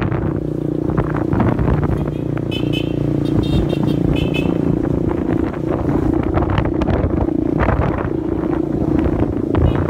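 Motorcycle engine running steadily while riding, heard from the pillion seat, with wind rushing over the microphone. A few short high-pitched beeps sound about three seconds in.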